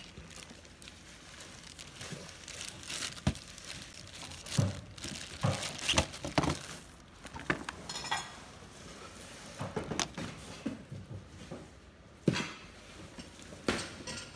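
Hands rummaging through a bag of small craft items: irregular clinks and knocks of small hard objects, with rustling of the bag, coming every second or two.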